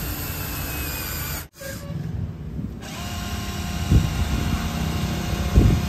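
Small electric motors of a Huina radio-controlled model excavator whining as it works. The sound breaks off sharply about a second and a half in, then a steady whine comes back with two knocks.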